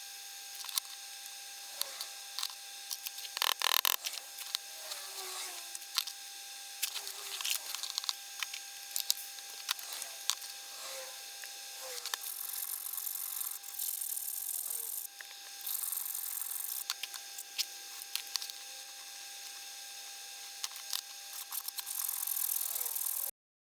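Small metal clicks and taps of watch-clasp parts being handled and worked, with a louder scraping burst about four seconds in and stretches of steady high hiss near the middle and again near the end.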